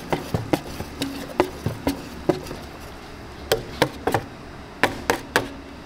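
Kitchen utensils tapping and clacking against hard surfaces: about a dozen sharp, irregular knocks, with a pause of about a second in the middle.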